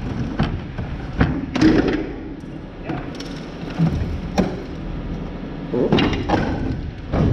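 Irregular knocks and thumps as a piece of motorised equipment is handled and carried while a grain bin is cleaned out. They come every second or so over a low steady rumble, with a cluster of louder knocks about six seconds in.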